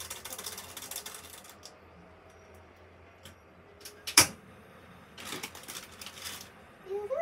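Crinkling and rustling of a plastic food packet being handled and torn open, in two spells, with a single sharp click about four seconds in.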